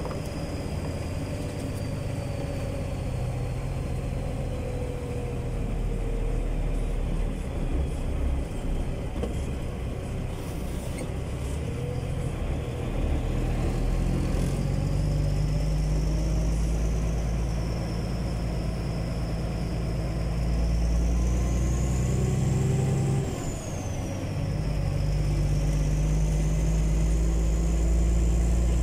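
Semi-truck's diesel engine running steadily under way, heard from inside the cab, with a thin high whistle that rises and falls over the second half. About 23 seconds in the engine sound briefly drops away and then picks up again.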